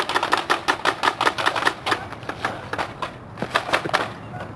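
Toy guns firing in rapid clicks, about seven a second, thinning out and stopping about four seconds in.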